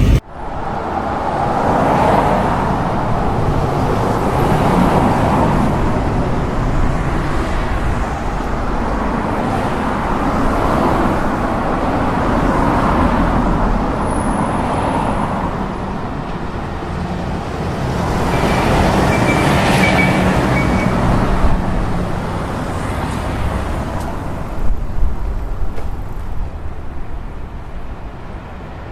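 Road traffic: vehicles passing one after another, the noise swelling and fading as each goes by.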